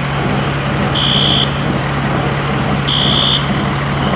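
Building fire alarm beeping, one short high-pitched tone about every two seconds, twice here, over a loud, steady hum and rushing noise.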